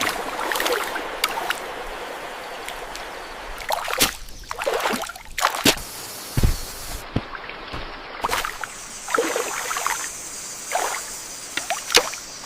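Water trickling steadily, with irregular splashes and knocks.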